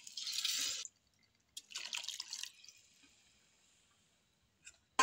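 Cooked whole masoor lentils and their cooking water poured into a kadhai of frying masala, splashing for about the first second, then a second shorter pour about two seconds in. After that comes a faint hiss that fades away.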